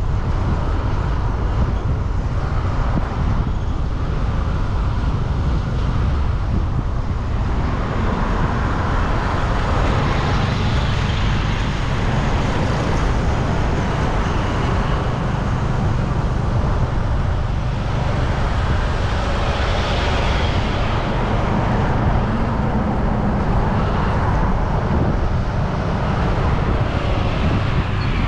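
Road traffic passing on a busy street, vehicles swelling past now and then over a steady low rumble.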